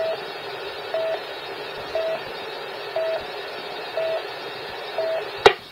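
Police radio channel keyed open over a scanner: a hiss of static with six short, mid-pitched beeps, one each second. A sharp squelch click near the end as the transmission drops.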